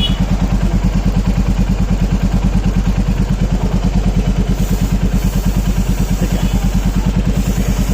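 Royal Enfield Classic's single-cylinder engine idling with an even, steady beat, with brief hisses of the chain-lube spray about halfway through and near the end.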